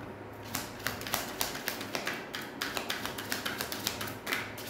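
Tarot cards being handled on the table: a steady run of short, light taps and flicks, about three or four a second.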